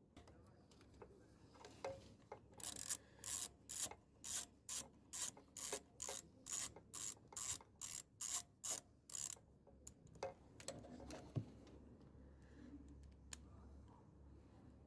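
A socket ratchet wrench clicking in a quick, even run of about seventeen strokes, roughly two and a half a second, before stopping; a few single clicks and knocks follow.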